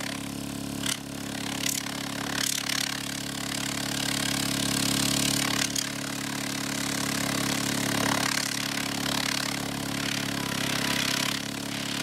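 Boyu ACQ-906 12-volt oilless diaphragm air compressor running steadily with an even hum, and a few light clicks in the first few seconds.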